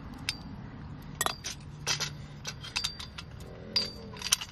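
Irregular sharp metal clinks and clicks of a 13 mm socket and nuts knocking against a metal ground radial plate and its bolts while the nuts are fitted.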